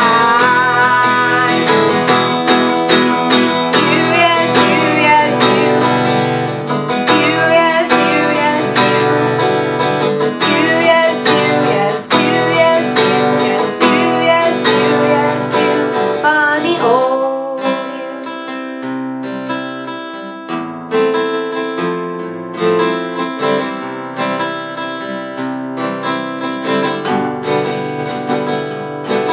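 A woman singing while strumming an acoustic guitar. A little over halfway through the voice drops out, and the strummed guitar carries on alone.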